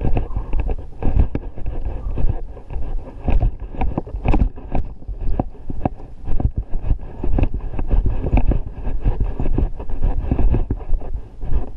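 Footsteps on dry grass and dirt under a heavy backpack, with the backpack-mounted camera knocking and rubbing about twice a second as it jolts with each step, over a low wind rumble on the microphone.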